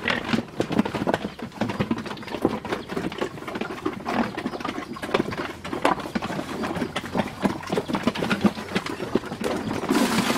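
Two black pigs eating feed at a trough, a quick irregular run of wet chomping and smacking.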